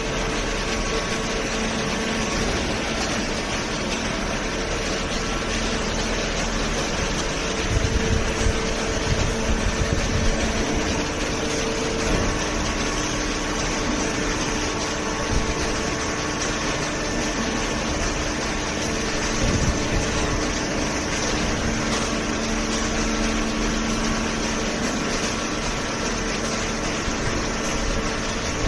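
Hydraulic baling press running: a steady machine hum with a noisy whir of motor and pump, with a few louder irregular thumps between about 8 and 12 seconds in.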